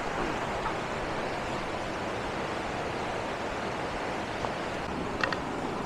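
Steady rushing of a rocky mountain river, an even wash of water noise. A brief high squeak sounds about five seconds in.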